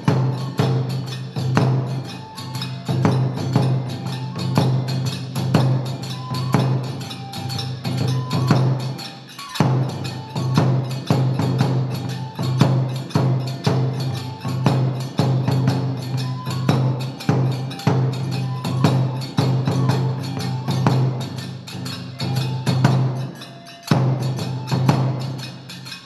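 Kagura music for a gongen-mai lion-head dance: a fast run of drum and percussion strikes with sharp wooden clicks and ringing metallic tones. It pauses briefly about nine and a half seconds in and again near the end.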